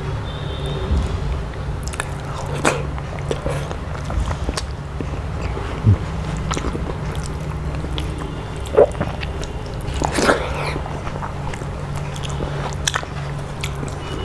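Close-up eating sounds: wet chewing and lip smacks, with fingers squelching through watery rice (panta bhat) on a plate. A handful of louder smacks stand out, over a steady low hum.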